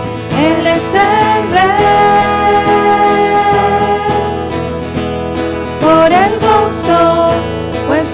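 Spanish-language worship song: voices singing together over an acoustic guitar, holding one long note through the middle.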